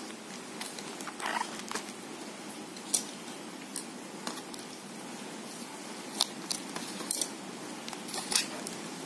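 Hands working clear packing tape onto cardboard: scattered small clicks, crinkles and rustles, the sharpest about three and eight seconds in, over a steady background hiss.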